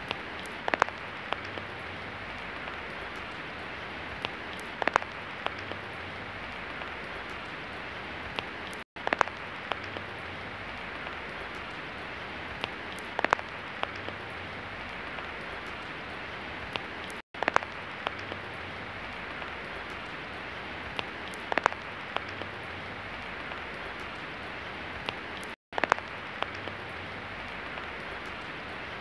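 Steady rain falling, a dense even patter with sharper single drops or drips striking a surface every few seconds. The sound drops out completely for a moment about every eight seconds.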